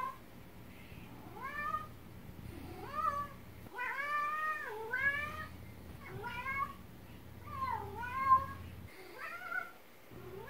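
A flame point Siamese cat meowing over and over, about one call a second, each meow rising and falling in pitch, with one longer, drawn-out meow near the middle: the chatty calling of a very vocal cat.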